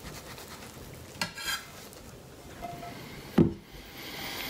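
Omelet slid out of a frying pan onto a plate: a short scrape against the pan a little over a second in, then one sharp knock, the loudest sound, about three and a half seconds in as the pan or plate is set down. A faint steady hiss runs underneath.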